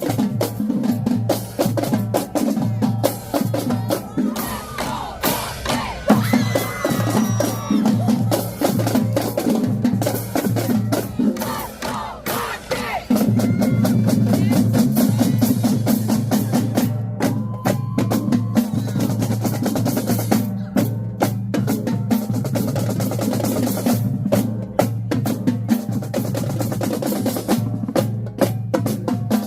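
Marching drumline playing a loud percussion cadence: snare drums, tenor drums and bass drums, with rolls and rimshots. About halfway through the low drums come in heavier and fuller, and the line then stops short together several times.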